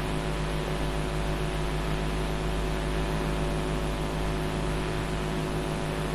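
Steady electrical hum with a layer of hiss, unchanging throughout, with no tool clicks or knocks: the background noise of an old film soundtrack.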